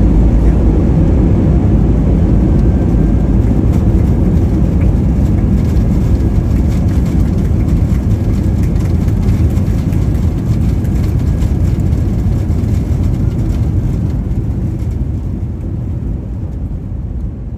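Cabin noise of an Airbus A320-family jet rolling along the runway after touchdown: a loud, deep rumble of engines and wheels that fades steadily as the plane slows to taxi speed.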